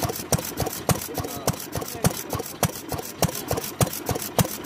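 Old Best single-cylinder stationary kerosene engine running steadily, its exposed valve gear and combustion giving an even, rapid clacking of about four beats a second.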